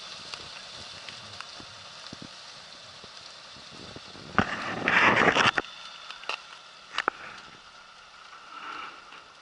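A truck and trailer wading through shallow water over ice: low steady noise with scattered small crackles, and a loud rushing noise for about a second near the middle, followed by a couple of sharp clicks.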